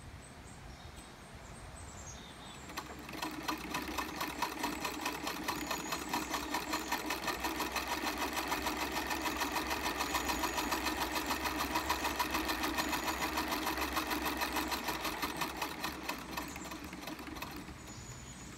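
A 1902 Singer 27-4 Sphinx treadle sewing machine stitching through two layers of denim: a fast, even clatter from the needle and vibrating-shuttle mechanism. It picks up speed about three seconds in, runs steadily, and slows and dies away near the end.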